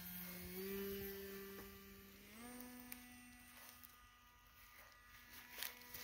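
Small electric motor and propeller of a climbing RC sailplane, a steady buzzing whine. It steps up in pitch about half a second and two and a half seconds in, and fades as the plane flies away.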